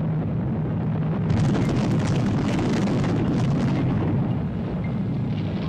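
Sound effect of a volcano erupting: a steady deep rumble, joined about a second in by crackling and rushing noise.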